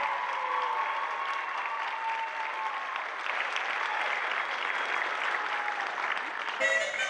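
Audience applauding after a music-and-dance number. Music starts up again near the end.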